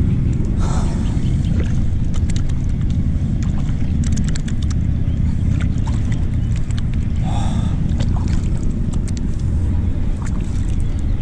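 A steady low rumble of wind on the camera microphone aboard a kayak, with scattered small clicks and light splashes of water around the hull.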